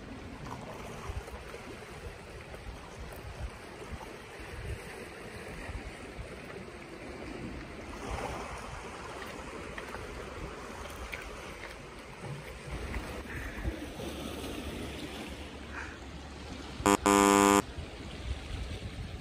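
Sea surf washing against a rocky shore, a steady rushing from water that has turned rough. Near the end a single short, loud buzzer-like tone sounds for under a second.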